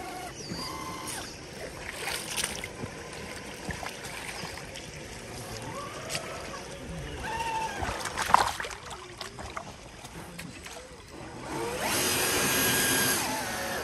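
RC crawler's electric motor and gearbox whining loudly for about a second and a half near the end. Before that come faint voices and a few sharp knocks.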